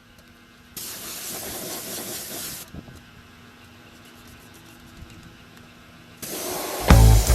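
Spray hissing in short bursts: one burst of about two seconds that starts and stops abruptly, then after a pause another starts near the end.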